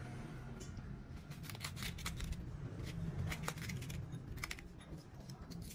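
Light, irregular clicks and taps of fingers handling chopped garlic and chili in a small ceramic bowl on a wooden chopping block.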